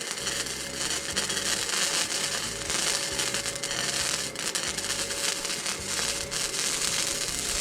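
Welding arc crackling steadily and continuously.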